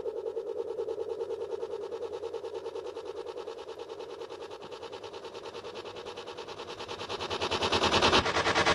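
Soundtrack music: a sustained pulsing drone, throbbing about five times a second, that swells louder toward the end.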